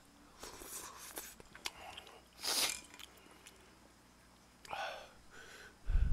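Close-miked eating of spicy udon: noodles and hot broth slurped and chewed, with a sharp hissing slurp about two and a half seconds in. Near the end comes a louder low thump as a spoon of broth is sipped right at the microphone.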